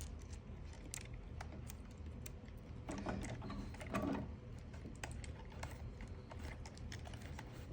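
Light, irregular clicks and taps of small RC-truck parts being handled as the hub retaining pin is fitted, over a low steady hum.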